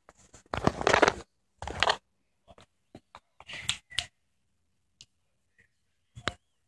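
Two short spells of rustling in the first two seconds, then scattered soft clicks and taps as a puppy moves about holding a tennis ball in his mouth.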